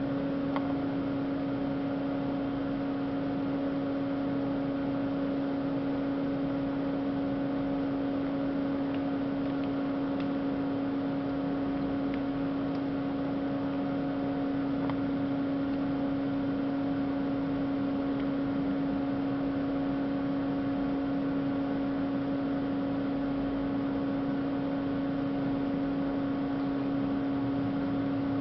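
Haas VF-2SS CNC machining center's spindle turning at 500 RPM in its warm-up cycle: a steady machine hum with one strong, even tone and fainter tones above it.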